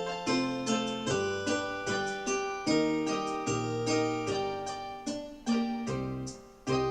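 Piano-like keyboard music, single struck notes and chords that ring and fade, played at a gentle pace with a brief pause near the end.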